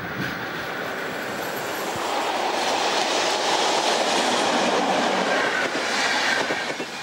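DB Class 103 electric locomotive and its Intercity coaches passing close by: the rolling noise of wheels on rail swells from about two seconds in, is loudest in the middle, and cuts off suddenly at the end.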